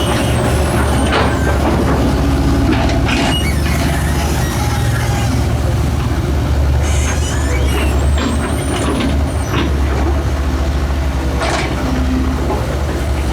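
Excavator's diesel engine running steadily while it digs, with several short hisses over the top.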